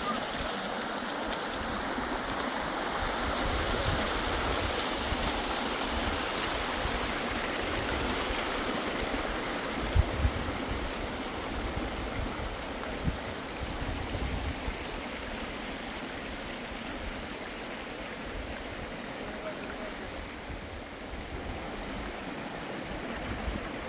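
Water running steadily with an even rushing noise, with a couple of short dull low knocks about ten and thirteen seconds in.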